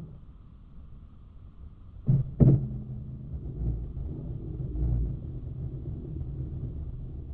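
Slowed-down, low-pitched audio from a camera on a baitcasting rod: a steady low rumble, with two sharp clicks about two seconds in from hands working an Abu Garcia Ambassadeur 1500C baitcasting reel.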